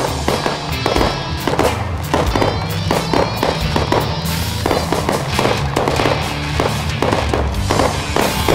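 Aerial fireworks bursting in a rapid, irregular run of bangs and crackles, over background music.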